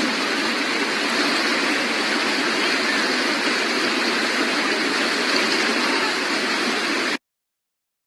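Steady, loud rushing noise that cuts off abruptly about seven seconds in, leaving dead silence.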